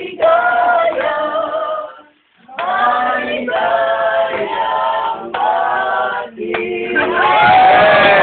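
A group of men and women singing a song together. The singing breaks off briefly about two seconds in, then picks up again and ends on a long drawn-out note that slides down near the end.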